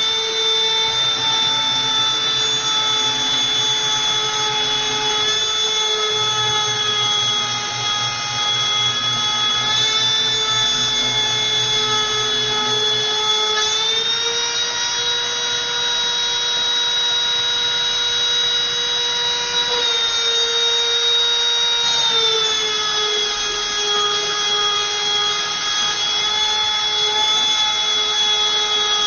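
CNC router's rotary-tool spindle running steadily with a high-pitched whine as its small bit engraves a plastic sheet. The pitch rises a little about fourteen seconds in and falls back about eight seconds later.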